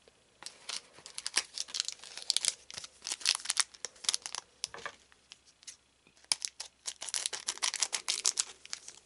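Foil booster-pack wrapper crinkling and rustling as it is handled, a dense crackle of small ticks in two stretches with a short lull about five seconds in.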